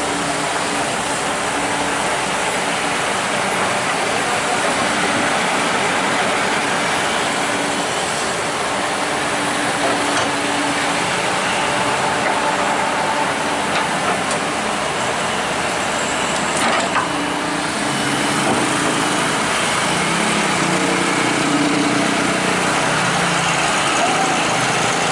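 Kobelco hydraulic excavator's diesel engine running close by while it works, with heavy road traffic going past. One brief clank about two-thirds of the way through.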